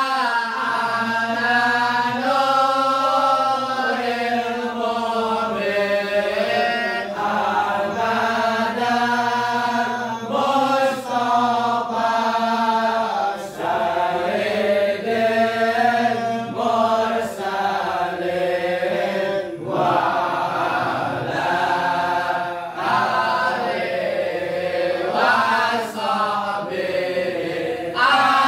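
A congregation chanting a sholawat, devotional Arabic praise of the Prophet, together in one melodic line, in long sung phrases with brief breaths between them.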